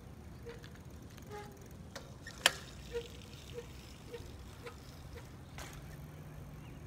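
Bicycle ridden past in a wheelie: a sharp click about two and a half seconds in, then a regular tick about twice a second as the wheel turns, the rub the rider blames on a brake pad catching the rim (or a warped wheel), which he's pretty sure is the brake pad.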